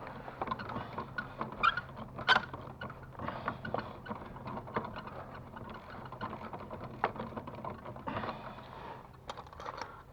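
Irregular small clicks and knocks of hand tools and metal fittings being worked, as in unbolting a TV aerial from its mast, over a steady low hum. The sharpest knock comes about two seconds in.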